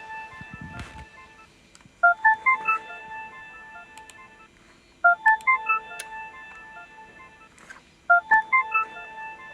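Electronic ringtone: a quick run of about eight short beeping notes, mostly climbing in pitch, repeating every three seconds, three times here. It sounds while the phone app calls the video doorbell to connect to it.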